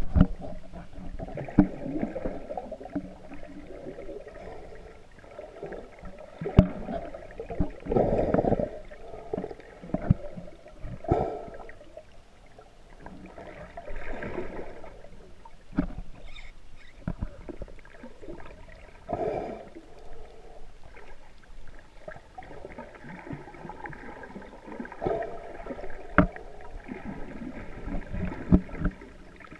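Underwater noise heard muffled through a camera's waterproof housing: water moving and gurgling, with scattered clicks and knocks and a few louder rushes.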